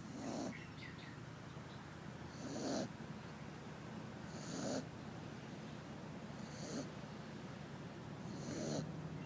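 A sleeping pet snoring with regular breaths, about one snore every two seconds, five in all.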